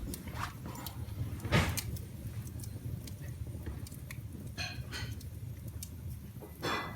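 Wood fire in a fireplace crackling, with scattered sharp pops, the loudest about a second and a half in, over a low steady rumble.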